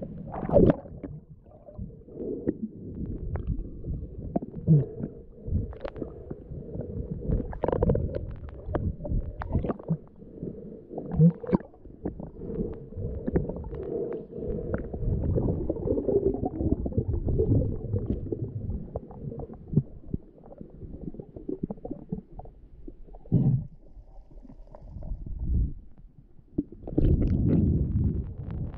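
Muffled water sloshing and rumbling picked up by a camera held at and just under the sea surface while snorkeling, with scattered short knocks and gurgles.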